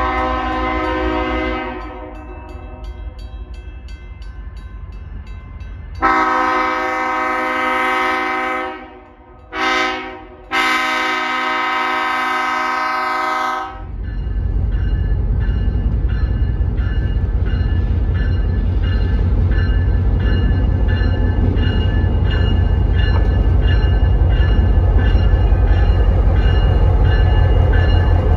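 Diesel locomotive horn sounding a crossing signal: long blasts, a short one, then a final long one. Then the locomotive's diesel engine rumbles loudly and grows slowly louder as the train draws near, with a bell ringing faintly over it.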